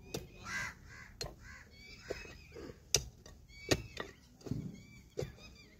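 A hand digging tool chopping and scraping into hard, dry, stony soil at the bottom of a small hole: several sharp, irregularly spaced strikes. Crows caw and small birds chirp in the background.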